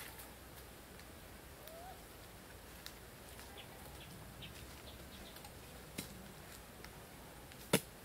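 Faint forest background with scattered light ticks and a short bird chirp about two seconds in. Near the end comes a single sharp knock as a wooden stick is driven into the ground.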